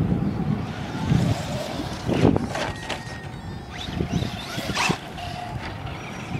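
Radio-controlled trucks running over dirt, with a faint steady motor tone, a few sharp knocks and heavy wind rumble on the microphone.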